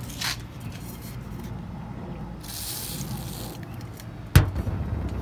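WD-40 aerosol can spraying onto a paper towel: one hiss of about a second, a little past the middle. Near the end, a single sharp knock, the loudest sound.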